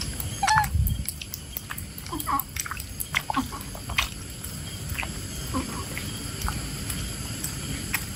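Baby monkey giving short squeaky calls, the loudest about half a second in and a few fainter ones over the next few seconds, with scattered light clicks and a steady high-pitched hum behind.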